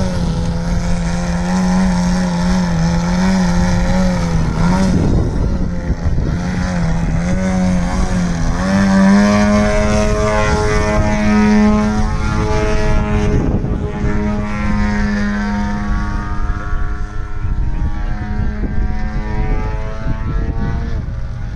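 Engine and propeller of a large radio-controlled aerobatic model plane hovering nose-up, the pitch wavering up and down as the throttle is worked to hold the hover. About nine seconds in the pitch rises and then holds steadier as the plane climbs away.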